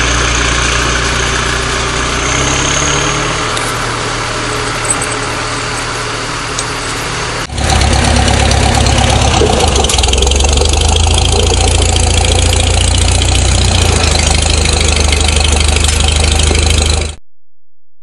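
Diesel farm tractor engine running steadily. About seven and a half seconds in, it changes abruptly to a louder, steady engine hum, which cuts off suddenly about a second before the end.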